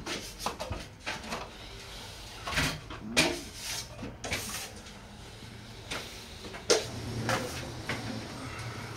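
Irregular knocks, clunks and scraping sounds, with a few longer scrapes in the first half, over a low steady hum.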